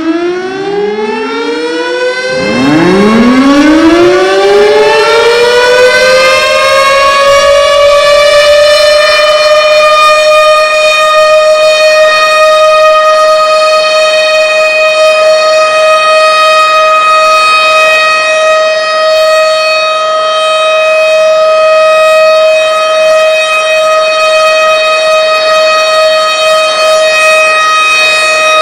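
Several tornado sirens winding up one after another, each rising in pitch in a staggered glide over the first three seconds or so, then merging into one loud, steady wail held at a constant pitch.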